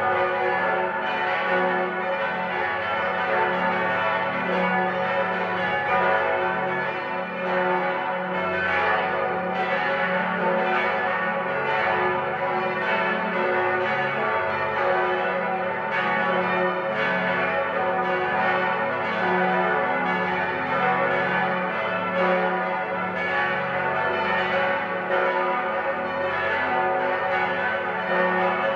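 Eight swinging church bells, tuned F♯, A, C♯, E, F♯, G♯, A and B, ringing together in a peal. Their strokes overlap into a continuous, dense clangour of many pitches.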